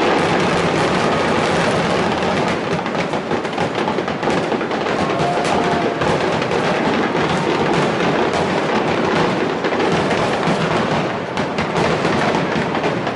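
Starmine fireworks barrage: many shells bursting in quick succession, a continuous mass of booms and crackling with no gaps.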